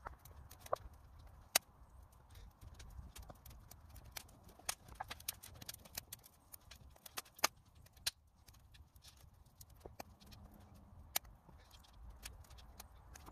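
Hands kneading and mixing bannock dough in a wooden bowl: soft, irregular knocks and clicks of fingers and the bowl against the wood, several a second, with a few sharper knocks standing out.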